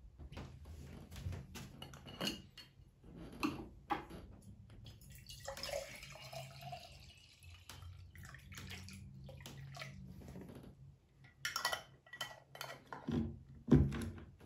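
Water being poured into a glass mason jar, with small clinks and knocks as the jar and its metal screw lid and straw are handled; the knocks cluster near the end as the lid goes on.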